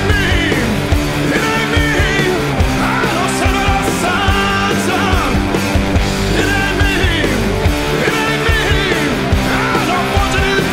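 Rock music with a steady drum beat and a melodic lead line, laid over the footage.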